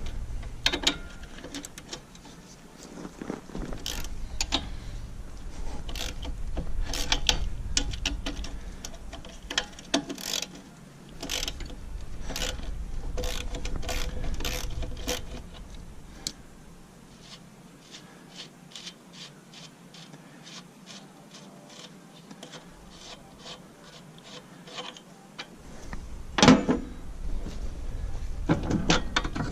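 Hand ratchet wrench clicking in short runs, with metal clinks and knocks, as the dozer blade's mounting bolts are taken out.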